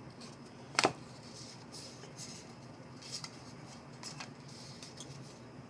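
Trading cards being handled and slid past one another, several soft rustles, with one sharp click about a second in.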